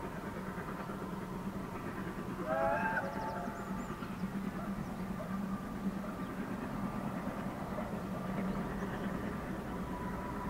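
Narrow-gauge steam train running, a steady rumble with a faint steady tone over it. About two and a half seconds in, a brief wavering pitched call stands out as the loudest moment.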